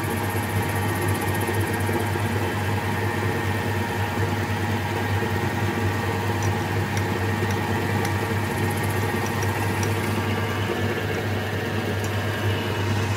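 Metal lathe running steadily under power with a low hum, taking a facing cut across the end of a steel-bar wheel blank.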